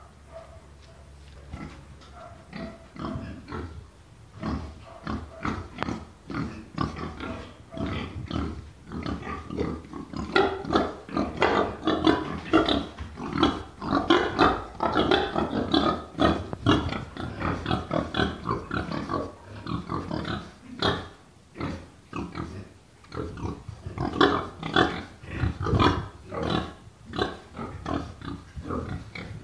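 Several young pigs grunting in a pen, short grunts coming thick and fast and overlapping. They are loudest in the middle and again near the end, with a brief lull in between.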